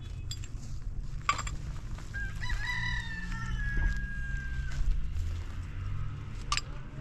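A rooster crowing once, a long call of about two and a half seconds starting near the middle. Two sharp knocks, one a little over a second in and one near the end, come from concrete blocks being handled.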